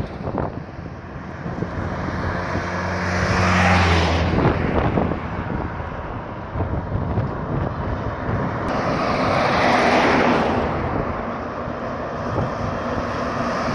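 Engine and road noise of a moving vehicle, with wind rushing over the microphone. The noise swells louder twice.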